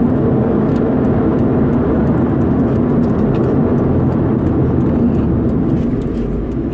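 Stock 2011 Subaru WRX's turbocharged flat-four engine running steadily with an even drone, easing slightly in level near the end.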